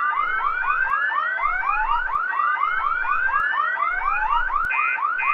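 Electronic fire alarm sounding: it starts abruptly with a fast repeating sweep of about five a second under a slower rising whoop. Near the end a higher beeping pulse joins in, about twice a second.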